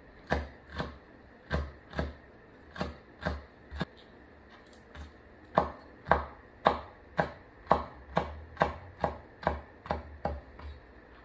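A Chinese cleaver chops soaked wood ear mushrooms into strips on a wooden cutting board, each stroke a sharp knock of the blade on the board. A slow run of strikes is followed by a short pause, then a quicker, even run of about two strikes a second.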